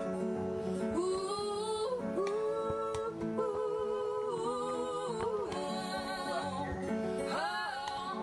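Background music: a song with a singing voice carrying the melody over sustained guitar chords.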